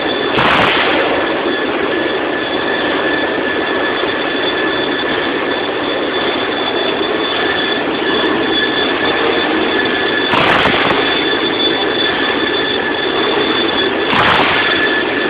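Band saw blade cutting through a solid stainless steel 304 bar: a steady grinding noise with a held high-pitched double whine, and three brief louder hissing surges.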